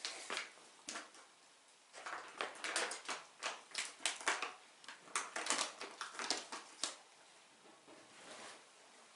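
Empty Felix foil cat-food pouches crinkling and crackling in quick irregular bursts as cats paw and nose at them, thickest in the middle of the stretch.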